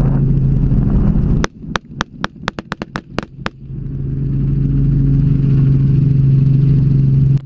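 Helicopter engine and rotor drone heard from inside the cabin, broken about one and a half seconds in by a rapid string of about ten gunshots over two seconds. The drone drops away during the shots and then builds back up to a steady level.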